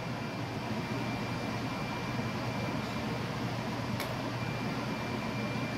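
Steady whir of a running fan, with a low hum and a faint high whine, and a single light click about four seconds in.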